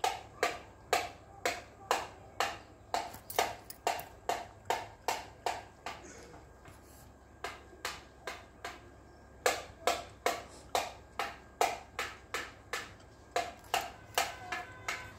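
Gray langur cracking and chewing seeds in its mouth: crisp cracks about twice a second, pausing for about a second near the middle.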